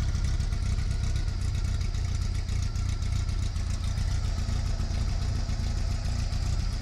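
1776 cc air-cooled VW flat-four built with Gene Berg parts, running and rumbling steadily at an even speed with no revving.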